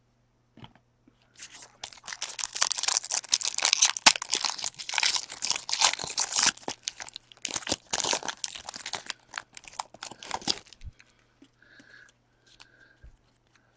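Foil wrapper of a baseball card pack being torn open and crinkled by hand, crackling for about nine seconds and stopping near the end.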